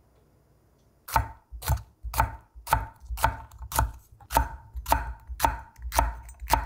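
Chef's knife slicing jalapeño peppers into rings on a wooden cutting board. The blade knocks on the board in a steady rhythm of about two cuts a second, starting about a second in.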